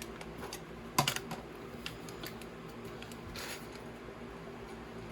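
Light scattered clicks and taps of LEGO parts bags and booklets being handled and set down on a table, the sharpest about a second in, over a faint steady hum.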